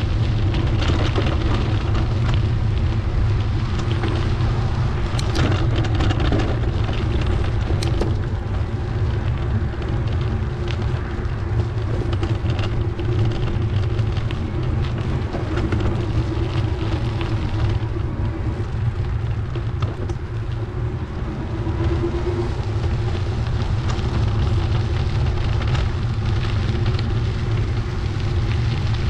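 Wind buffeting the microphone of a camera on a moving bicycle: a steady low rumble and rush, with a few sharp clicks about five and eight seconds in.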